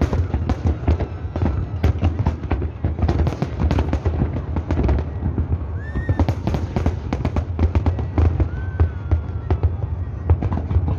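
Aerial fireworks display: a dense, continuous barrage of shell bursts, bangs and crackles over a deep rumble. Two short rising-and-falling whistles cut through, about six and eight seconds in.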